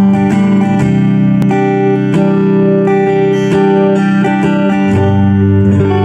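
AIERSI ST11 Stratocaster-style electric guitar played through its single-coil pickups: a steady run of picked and strummed chords, a new attack about every half second, each left ringing into the next.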